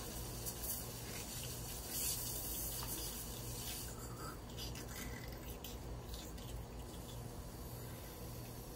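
Faint rustling and rubbing as puppies crawl on a blanket and are petted by hand, a few scattered soft scratchy sounds over a low steady background hum.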